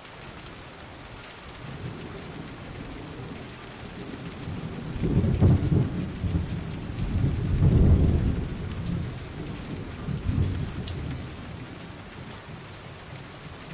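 Rain falling steadily with thunder rumbling, swelling about five seconds in and again, longer, around eight seconds before dying away.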